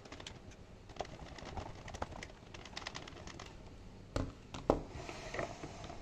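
Small clicks and taps of screws and a screwdriver being worked into a Mercedes R107's VDO instrument cluster, with two sharper clicks a little after four seconds in.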